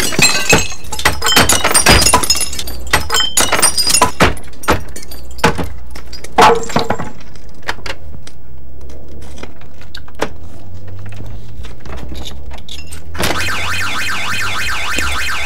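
A pane of glass being smashed in with a tool: a rapid series of cracks and knocks with shards tinkling for the first several seconds, then a few scattered knocks. About thirteen seconds in a burglar alarm starts sounding, a rapidly pulsing tone over a steady hiss.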